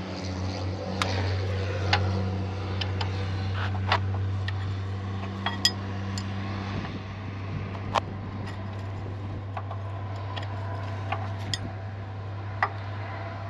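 Ratchet spanner working bell housing bolts on a Fordson Super Major: scattered irregular metallic clicks and clinks, a dozen or so, over a steady low hum.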